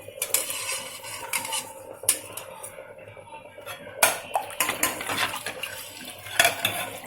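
Spoon clinking and scraping against a cooking pot, a string of sharp clinks at uneven intervals, as pounded ginger, garlic, cumin and pepper are tipped into the rasam. A faint steady hum runs underneath.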